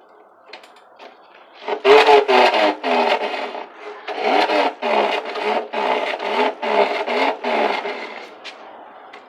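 Plastic litre bottle held against a bicycle wheel's spokes, rattling in a loud rasping buzz as the wheel is spun. Its pitch rises and falls repeatedly with the wheel's speed, like a small motorbike revving. It starts about two seconds in and stops about a second before the end.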